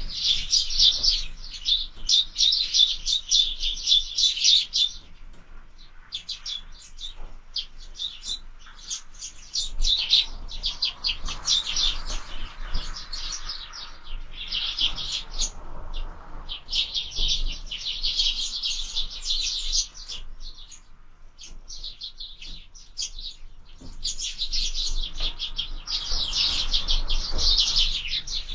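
Sparrows chirping at a feeder: many short, high chirps in dense runs, with sparser chirping between the runs.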